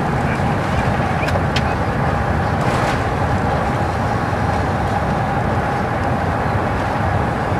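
Steady cabin noise inside an Airbus A380 taxiing after landing: a constant low rumble with a faint steady whine, and a couple of faint clicks about a second and a half in.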